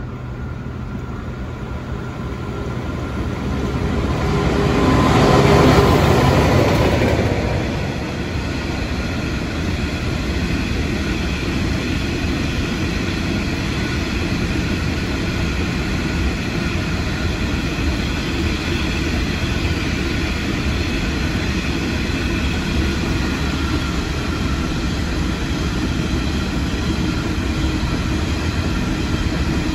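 A Pacific National coal train headed by two TT-class diesel-electric locomotives passes at speed. The noise builds and peaks about six seconds in, then the long rake of coal hopper wagons rolls by with a steady rumble of wheels on rails and faint ringing tones.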